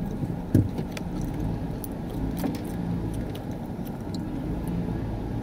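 City street traffic noise: a steady low rumble and hum of vehicle engines, with one sharp knock about half a second in and scattered light clicks.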